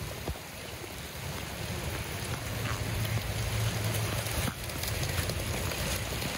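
Steady rain falling on a soaked lawn, an even hiss.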